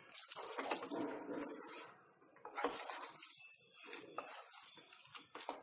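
Wooden spatula stirring fusilli pasta in a thick white sauce in a steel pot: wet stirring and scraping in irregular strokes, with a short pause about two seconds in.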